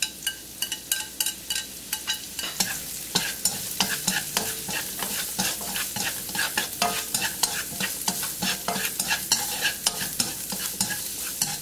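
Julienned carrots sizzling in hot oil in a non-stick wok, stirred with a spatula that scrapes and taps against the pan several times a second.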